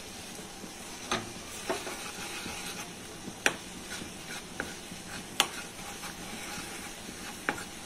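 Steel ladle stirring milk and mawa cooking down into rabri in a small steel saucepan, with about six sharp clinks of the ladle against the pan at uneven intervals over a steady hiss.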